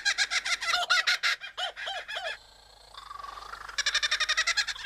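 Kookaburra-style laughing call: rapid runs of rising-and-falling notes, then three slower, lower notes and a short pause, before the rapid chatter starts again near the end.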